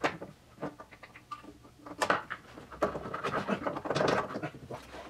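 Rubber radiator hose being worked onto its metal pipe by hand: irregular rubbing and scraping with light knocks, busiest about three to four seconds in.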